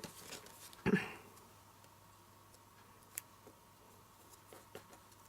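Stacked cardstock letters being handled and knocked on a work surface: two soft knocks about a second apart, then a few faint light ticks of paper handling.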